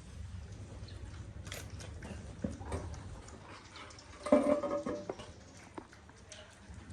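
Puppies feeding at a bowl, with scattered small clicks and smacking sounds and one short pitched whimper about four seconds in.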